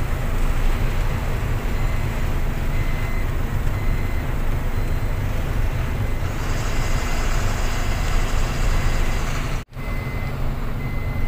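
Truck engine and road noise heard from inside the cab while driving, a steady low rumble, with a faint high beeping tone repeating in places. The sound cuts out for an instant near the end.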